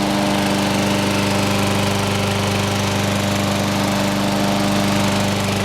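John Deere 14ST walk-behind mower's Kawasaki 5 HP engine running steadily at constant speed, after starting on the first pull with a freshly cleaned carburettor. A really quiet engine.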